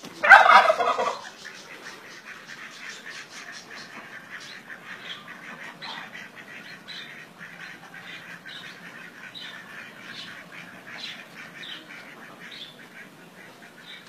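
A tom turkey gobbles once, loudly, for about a second at the start. After it, high short peeping calls repeat about once a second.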